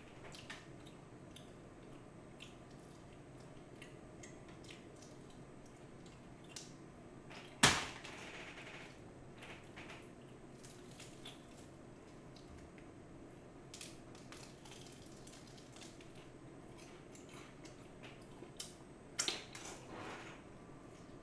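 Eating BHC Bburinkle fried chicken by hand: scattered soft crunches and clicks of chewing and handling the pieces over a steady low hum. One loud, sharp crack about eight seconds in, and a few louder clicks near the end.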